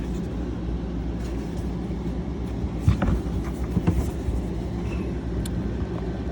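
An engine running steadily with a low, even rumble, with a few short knocks about three and four seconds in.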